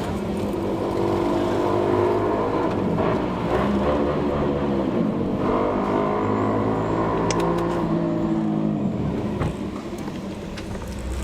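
Motorcycle engine running and revving, its pitch rising and falling several times with the throttle, then settling to a lower, quieter note near the end.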